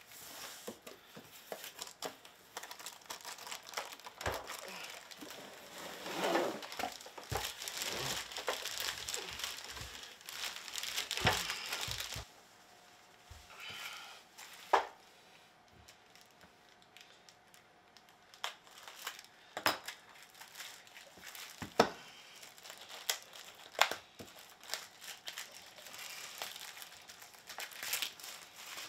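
Plastic packaging bags crinkling and rustling as hands handle the plastic-wrapped parts of a keyboard stand, dense for the first dozen seconds and then sparser, with a few sharp knocks of the parts being set down.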